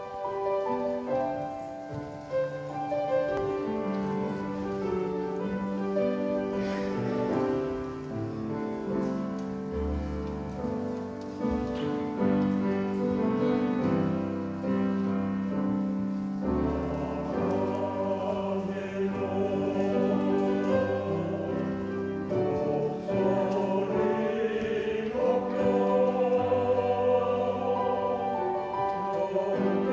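A male vocal quartet singing a worship song in harmony over an instrumental accompaniment. The first half is mainly the instrumental opening, and the men's voices come in a little past halfway.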